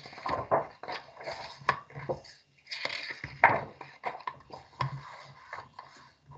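Paper rustling and soft handling knocks as a picture book's pages are turned and pressed flat by hand, in irregular bursts.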